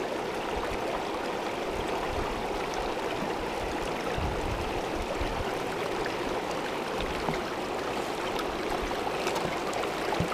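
Shallow creek running over rocks: a steady rush of flowing water.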